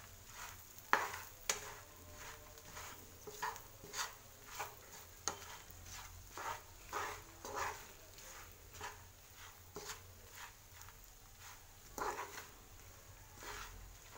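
White plastic spatula stirring and scraping boiled egg pieces and chana dal around a nonstick frying pan, in repeated short strokes about every half second, the sharpest about a second in.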